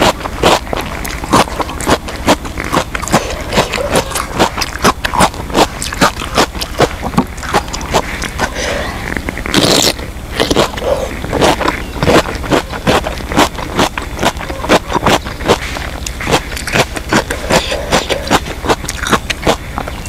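Close-miked eating: steady wet chewing and crunching, several clicks a second, with a sharp crisp crunch near the middle as a raw cucumber is bitten.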